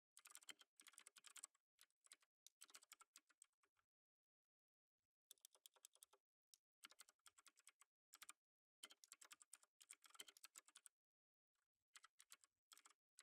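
Faint computer keyboard typing: quick runs of keystroke clicks in bursts, with a pause of a second or so twice.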